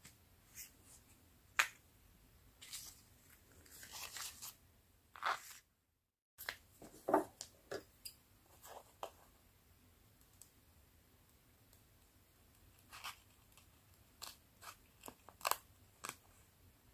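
Clear plastic sticker sheets crinkling and rustling as they are handled and sorted by hand, in short irregular bursts. Near the end come a few sharp snips of small scissors cutting into a sticker.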